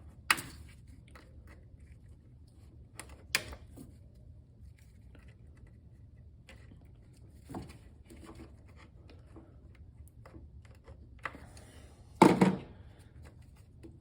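Scattered clicks and knocks of hands and tools working hose connections on an engine's idle air control valve, with the engine off. The loudest is a short thunk about twelve seconds in.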